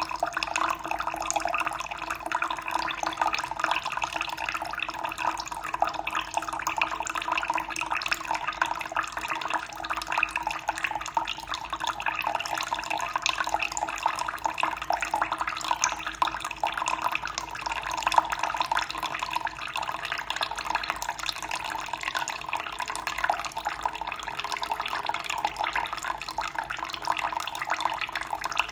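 Running water flowing and splashing in a steady, unbroken stream with fine trickling detail.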